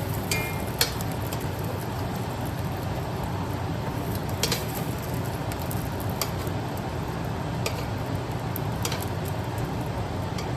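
Steady hiss of oxtails searing in a pan, with a few sharp pops of spitting fat, over the even hum of a stove fan.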